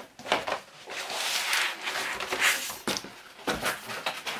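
Vinyl record sleeves and packaging being handled: a long stretch of rustling and sliding, with a few light clicks and knocks.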